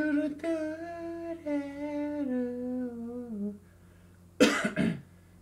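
A man humming a country-song melody unaccompanied, holding long notes that step down in pitch for about three and a half seconds. A short, loud breathy burst follows near the end.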